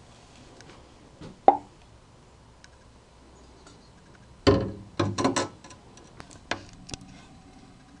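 Glass container with a phone inside being set down into a water-filled glass aquarium: a sharp knock, then a burst of splashing and knocks of glass on glass about halfway through, followed by a few lighter knocks.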